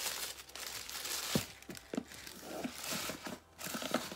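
Tissue paper crinkling and rustling as it is pulled off a jar, with a knock about a second and a half in.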